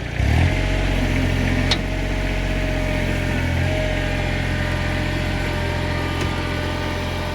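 Kubota tractor's diesel engine throttling up from idle and then running steadily under higher revs. A single sharp clank sounds a little under two seconds in.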